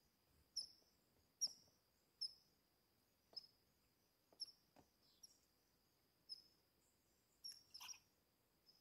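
Faint, short, high chip calls from a small animal, repeated roughly once a second with a quick double near the end.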